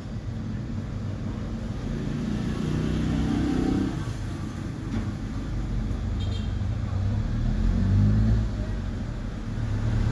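Low, steady rumble of motor-vehicle noise, swelling and easing a little.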